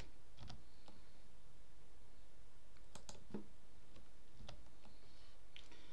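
About half a dozen isolated computer keyboard and mouse clicks, spaced irregularly a second or so apart, over a faint steady background hiss.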